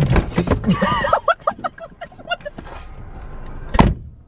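A man laughing, in a quick run of short bursts that fades out about two and a half seconds in, then a single loud thump near the end.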